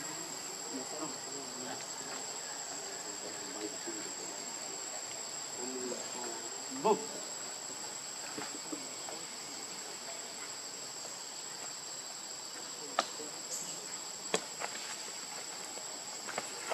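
Steady insect chorus: a continuous high buzz with a thin, unbroken high whine on top. A brief low sound comes about seven seconds in, and two sharp clicks come near the end.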